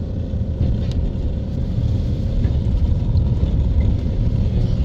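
Steady low rumble of a car driving along a wet street, heard from inside the cabin.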